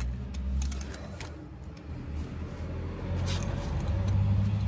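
Low rumble of a motor vehicle's engine, growing louder after about three seconds, with a few faint metallic clicks from a small nut and bolt being threaded by hand.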